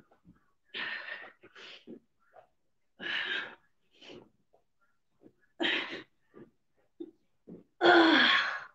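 A woman breathing hard during plank jacks, with sharp hissing exhales every second or two and a longer, louder voiced exhale that falls in pitch near the end. Faint short thuds of her feet on the exercise mat come between the breaths.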